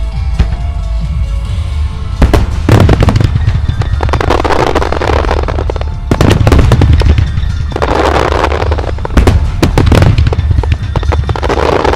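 Music starmine fireworks: rapid-fire shells bursting in loud clustered volleys from about two seconds in, over the show's accompanying music.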